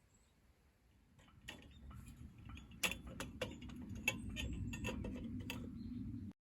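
Wood fire crackling, with irregular sharp snaps and pops over a low rumble that swells up about a second and a half in, then cuts off suddenly near the end.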